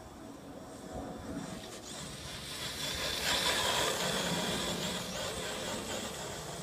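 Team Associated RC8Be electric 1/8-scale buggy with a Tekin brushless system on 4S running across grass. Its motor whine and tyre noise swell as it passes close, loudest about three seconds in, then ease off as it moves away.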